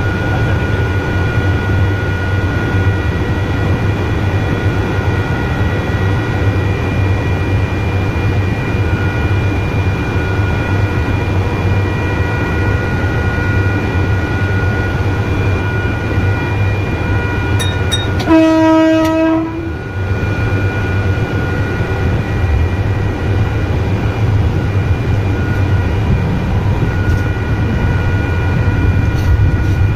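Electric multiple-unit train running steadily, heard from the driver's cab, with a steady whine over the running rumble. About two-thirds of the way through, its horn sounds once for about a second and a half.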